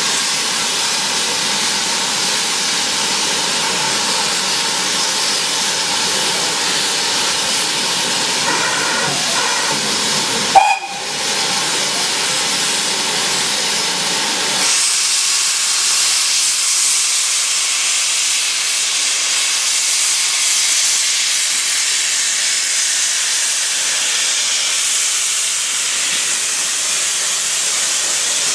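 Steady hiss of steam escaping from standing steam locomotives. The hiss grows louder and higher about halfway through. There is one sharp, loud knock about ten seconds in.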